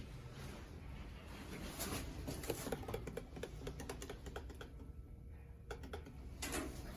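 Irregular light clicks and rattles over a low steady hum, from a Mitsubishi ELEMOTION+ elevator, with a brief louder burst near the end.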